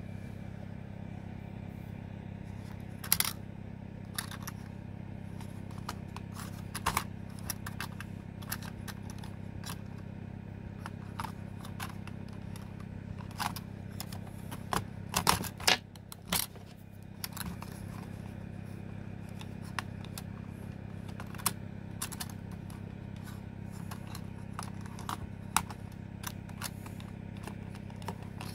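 Scattered clicks, taps and scrapes from handling the plastic casing of an Aiwa RX308 cassette Walkman and fitting AA batteries into it, with a cluster of louder clicks about halfway through, over a steady low hum.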